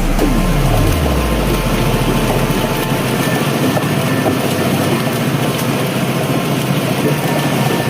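Feather plucker machine driven by a 7 HP petrol engine through a WPO 60 gearbox, running with a continuous mechanical rattle. Near the start the engine's pitch drops sharply over a second or so, then it runs steadily.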